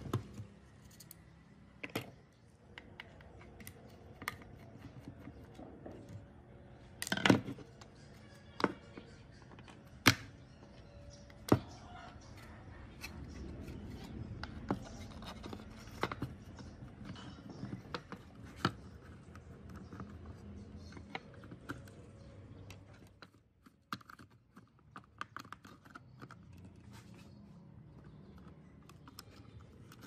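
Hands working a dirty plastic RC car body shell: scattered plastic clicks, snaps and scraping as broken pieces are pulled and pressed out. A few sharp knocks stand out, the loudest about seven seconds in and others around ten and eleven seconds.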